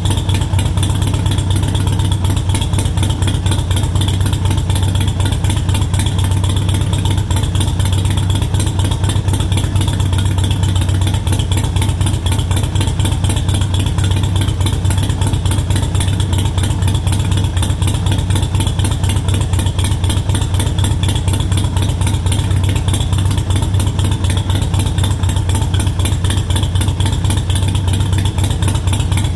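Harley-Davidson Sportster Iron 883's air-cooled V-twin idling steadily through Cobra Speedster Short slash-cut exhaust pipes, with a deep, even low tone. The engine runs a Vance & Hines Fuelpak FP3 tune that lowers the idle to 800 rpm.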